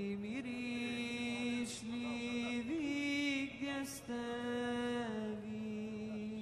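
A solo voice chanting a slow melody in long held notes that step up and down in pitch, unaccompanied.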